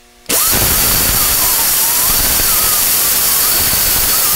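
Handheld rotary grinder starts abruptly and runs, grinding down the retaining pins of a Ford Model A shift tower: a loud hissing whir whose pitch wavers up and down.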